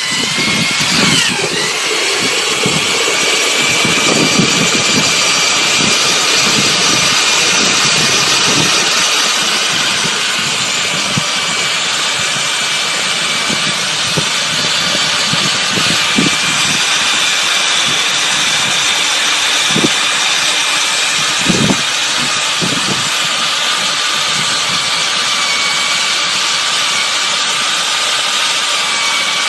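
A motor running steadily with a high-pitched whine, with a few short knocks around twenty seconds in.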